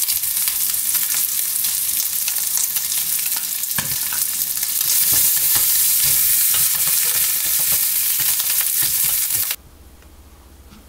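Chopped bacon sizzling loudly in a frying pan, with scattered clicks and taps as tongs stir the pieces. The sizzle cuts off suddenly near the end, leaving a faint low hum.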